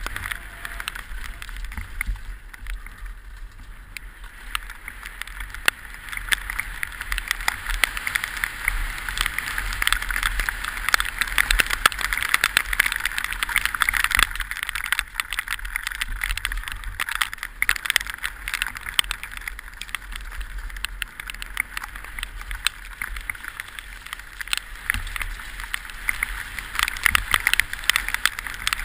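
Orange 223 downhill mountain bike rattling and clattering over rough, wet trail at speed, with tyre noise and many sharp knocks from roots and rocks, heard through a helmet-mounted camera. It gets louder and busier a few seconds in.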